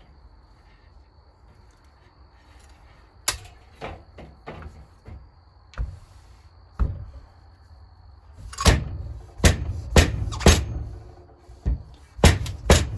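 A homemade slide-style seal driver slammed down a motorcycle fork tube, knocking a new fork seal into the fork leg of a 1996 Honda XR250R. First a few scattered knocks, then from about two-thirds of the way in a run of harder thuds about two a second.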